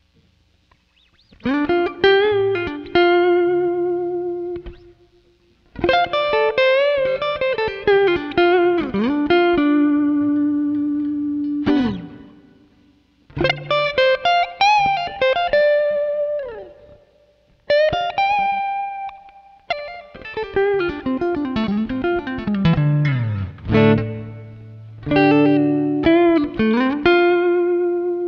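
Clean electric guitar with P-90 pickups, played through a Joyo American Sound amp-simulator pedal on its Twin-style clean voicing with spring reverb and recorded direct. Phrases of single notes and chords with bends and slides, broken by short pauses.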